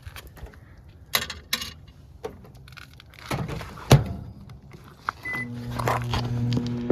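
Microwave oven being loaded and started: a few clicks and knocks, the door shutting with a loud thunk about four seconds in, a short keypad beep, then the oven's steady low hum as it starts running.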